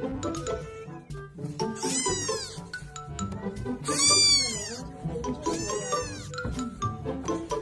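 Young tabby kitten meowing three times, high-pitched mews about two seconds apart, each rising then falling in pitch, over background music.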